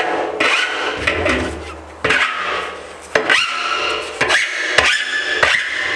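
Single-cut bastard file rasping in long strokes along the cut steel rim of a 55-gallon drum, deburring the freshly cut edge. There are a few sharp clicks in the second half.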